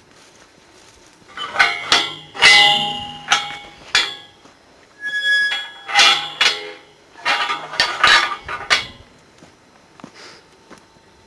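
Metal pipe gate and corral panels clanging and rattling in a run of sharp ringing strikes, with a brief high squeak about halfway through.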